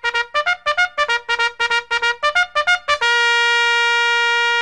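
Brass fanfare music: a run of quick short notes, then one long held note from about three seconds in.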